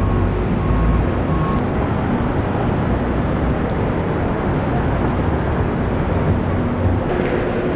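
Steady, dense rumble of street traffic.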